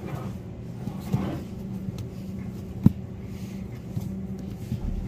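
Taro roots being handled in a cardboard produce bin: a few soft knocks and one sharper knock about three seconds in, over a steady low hum.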